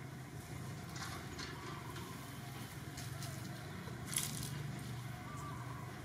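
Faint rustling and crackling of dry leaves on the ground, with one sharper crackle about four seconds in, over a steady low hum.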